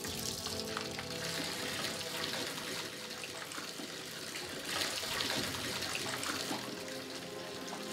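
Water running steadily from a tap on a wall pipe, turned on full, with background music underneath.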